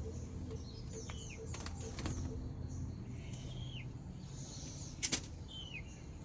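A small pet bird giving short chirps, each falling in pitch, about three times, with fainter higher chirps between them and a few sharp clicks, the loudest about five seconds in.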